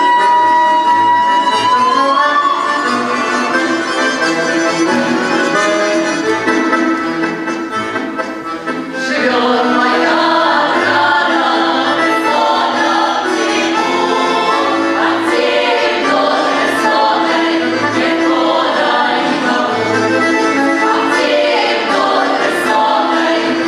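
Women's folk ensemble singing a Russian song with accordion accompaniment. A long held note slides upward about two seconds in, and about nine seconds in the music comes in fuller, with sharp accents on the beat.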